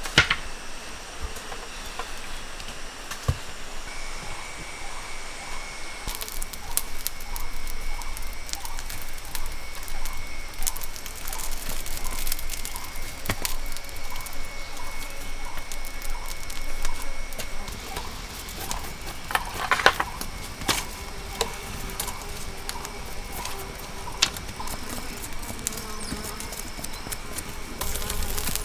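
Wood campfire crackling with scattered sharp pops, over a steady high-pitched insect drone and a short chirp repeating about one and a half times a second.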